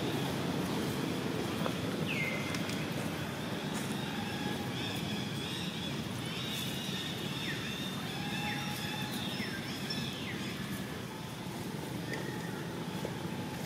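Steady outdoor background noise, a low rumble, with faint high-pitched calls held for about a second at a time and several short falling chirps scattered through it.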